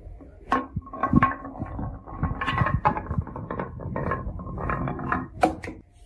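A marble rolling down a carved wooden serpentine track, with a steady rolling rumble and many irregular knocks as it strikes the walls of the bends. A couple of sharp impacts come near the end.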